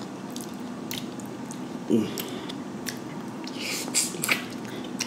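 A man eating a boiled head-on tiger shrimp with his hands: small clicks as the shell is pulled apart, a short hum about two seconds in, then wet biting and chewing near four seconds.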